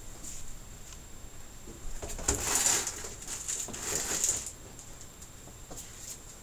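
Rustling and crackling of a large thin plastic TV diffuser sheet being handled and set aside, loudest in two stretches about two and four seconds in.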